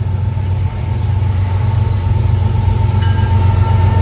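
Diesel-electric freight locomotives approaching and passing close by, their engines running with a deep, steady rumble that grows louder near the end, over a faint steady high whine.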